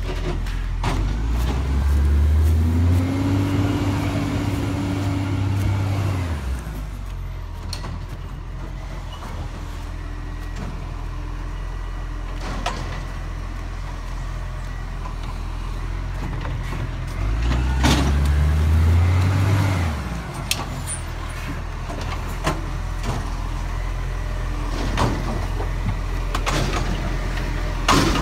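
Garbage truck's diesel engine idling, then revving up and holding for a few seconds twice, about a second in and again near the two-thirds mark, each time dropping back to idle. Scattered sharp knocks and clanks sound over the engine.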